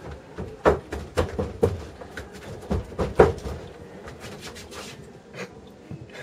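Footsteps and knocks on a theatre stage floor: several sharp, irregular knocks in the first three seconds or so, the loudest about three seconds in, then only quiet room sound.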